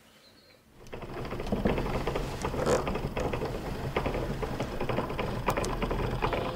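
A machine clattering, a dense run of rapid irregular clicks over a steady low hum, starting about a second in.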